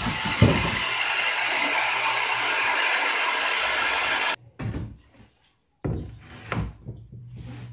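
Electric saw cutting through a sheet of 16 mm marine plywood, a steady loud noise that stops abruptly about four and a half seconds in. Then a few knocks and clatters as the plywood is handled.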